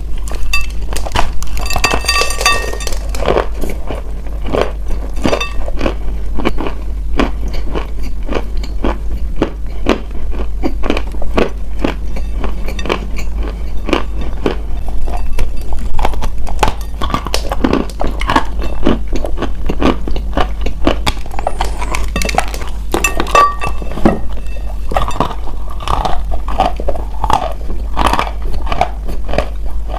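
Close-miked biting and crunching of hard, chalky edible pieces: a dense run of crisp, irregular crunches.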